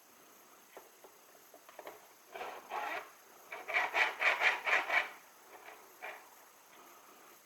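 Short scraping strokes rubbed back and forth by hand: two slower strokes, then a quick run of about six more.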